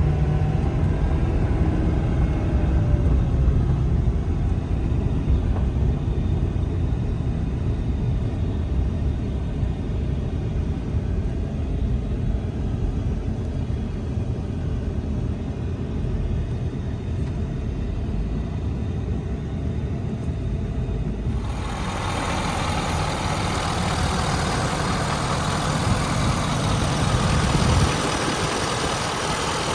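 Ford F-550's 6.7 L Power Stroke V8 turbodiesel running steadily, a deep low rumble. About two-thirds of the way through, a harsher hissing noise comes in suddenly over it.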